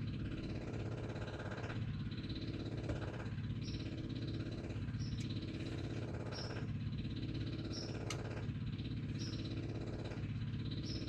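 A steady mechanical or electrical hum made of several pitched tones. Its higher part drops away and comes back at a regular pace, about every one and a half to two seconds.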